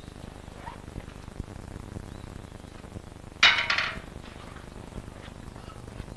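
A sharp metallic clank with a brief ringing tail about three and a half seconds in, from thin metal rods being handled and knocked together, with a few small ticks and a steady faint hiss.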